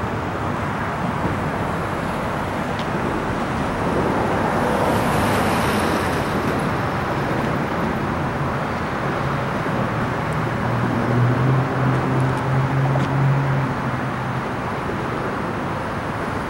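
Steady road-traffic noise with a vehicle engine running. The engine's drone swells with a pulsing loudness in the second half, then fades.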